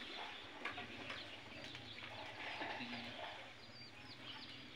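Chickens faintly clucking and peeping: short, high chirps that fall in pitch come in quick succession in the second half. Faint voices are in the background.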